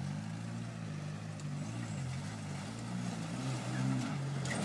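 Jeep engine working at low revs as it crawls over boulders, its pitch rising and falling with small throttle changes.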